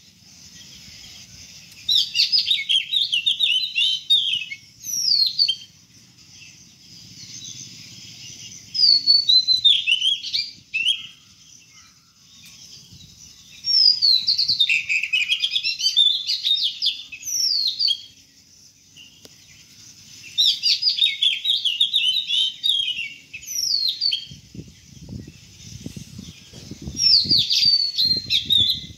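Small birds chirping and twittering in quick, repeated phrases of sliding high notes, with pauses of a second or two between phrases. Near the end come a few low knocks.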